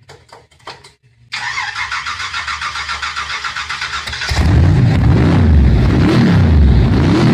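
Car engine cranked by its starter with a fast, even chatter, catching about four seconds in and then revved repeatedly, its pitch rising and falling.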